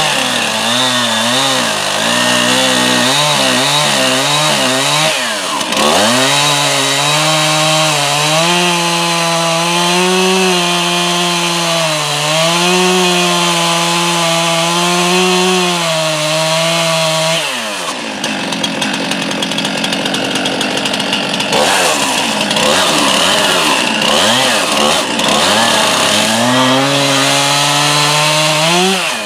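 STIHL two-stroke chainsaw running at high throttle while cutting into a tree trunk, its engine note wavering under the load of the cut. The note falls away briefly about six seconds in and again at around eighteen seconds, then climbs back up near the end.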